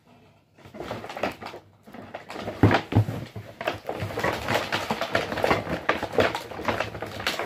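Objects being handled close by: a busy run of rustling and light knocks and clatter, starting about half a second in and going on to the end.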